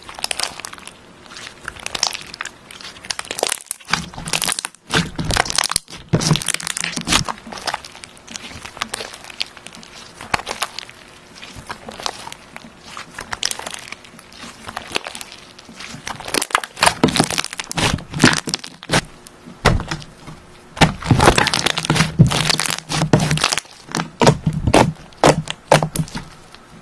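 Hands stretching, folding and poking a glossy red slime, making a dense run of sticky crackles, pops and clicks. The crackling gets busier and louder in the second half.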